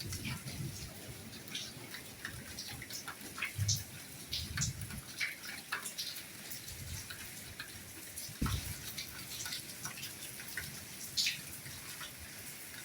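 Soft rain: a steady hiss with many separate drops pattering and dripping irregularly, and a few dull low thuds of heavier drops.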